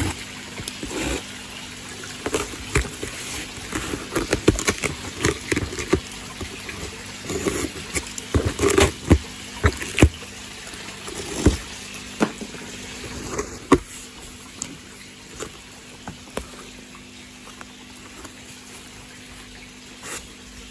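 A postal box of koi fry being opened by hand: a busy run of sharp clicks, knocks and crinkles from the packaging, thinning out after about fourteen seconds. Steady running water sounds in the background.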